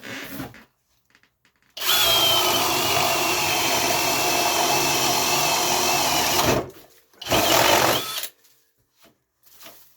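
Flex cordless hammer drill on speed 2 boring a hole with a 1.25-inch paddle bit, running steadily for about five seconds before stopping. It gives one more short run about a second later.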